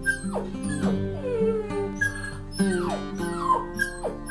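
Puppy whimpering and yelping in a quick series of high cries that each fall sharply in pitch, over background music with held notes.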